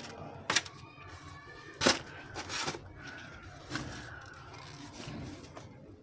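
Naan flatbreads being handled and laid into polystyrene foam takeaway boxes: short rustles and scrapes of bread against foam, the two sharpest about half a second and two seconds in.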